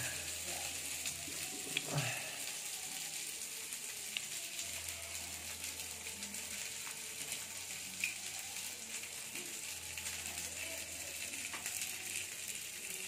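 Chicken pieces and sweet-soy chilli marinade sizzling steadily on a hot stovetop grill plate while they are basted with a brush, with a few faint taps.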